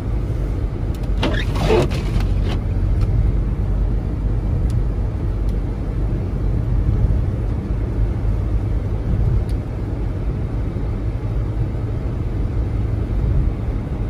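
Steady low rumble of a car's tyres and engine heard inside the cabin while driving on a snow-covered road.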